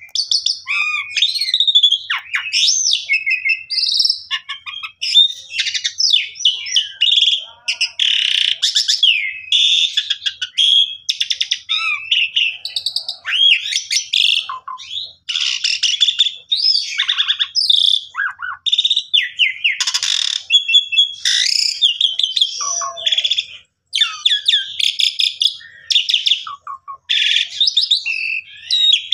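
Asian pied starling (jalak suren) in full song: a loud, unbroken run of varied phrases, quick rising and falling whistles mixed with harsh rasping notes, hardly pausing.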